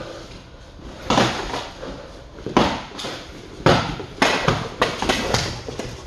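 Sharp thuds of taekkyon sparring: kicks and gloved strikes landing on padded headgear and guards, mixed with feet stamping on a wooden floor. The hits are spaced out at first and come quickly in the last two seconds.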